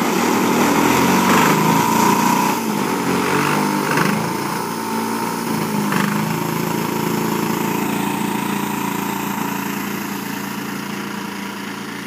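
Engine of a large radio-controlled CARF Su-31 aerobatic model plane running at low throttle, with a few brief louder bursts in the first half, then fading steadily as the plane taxis away.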